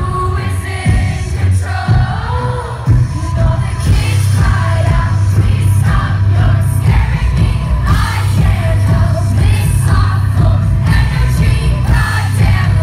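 Live electropop concert: a woman singing into a microphone over a loud backing track with heavy bass.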